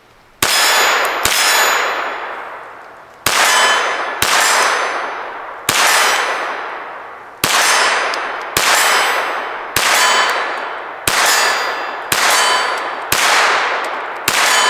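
Kel-Tec CP33 .22 LR pistol firing about a dozen shots at an uneven pace of roughly one a second. Each shot is followed by a ringing that fades over about a second, typical of bullets striking a steel target.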